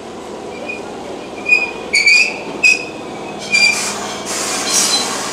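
Keihan 2600-series electric train braking to a stop at a platform, squealing four times in short high-pitched squeals over the running noise, then a burst of hiss near the end.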